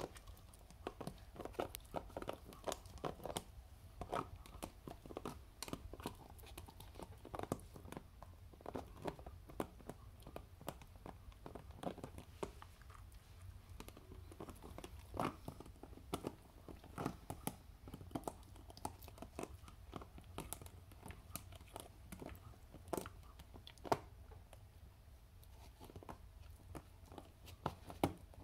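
A Patterdale terrier gnawing at a plastic peanut butter jar and its screw lid: irregular crunching and clicking of teeth on hard plastic, a few times a second.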